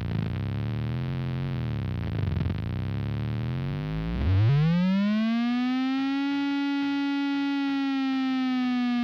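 Circuit-bent Waldman flanger pedal making electronic noise: a buzzing, wavering drone for about four seconds, then the pitch sweeps sharply up into a steady held tone with a rich, distorted edge.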